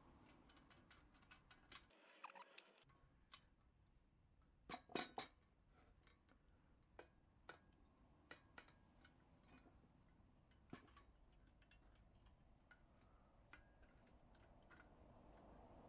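Small metallic clicks and taps from the fuel control lever and valve of a Coleman 508A gasoline stove being worked back and forth by hand, its wire stiff and catching at first; faint, scattered clicks with a louder cluster about five seconds in.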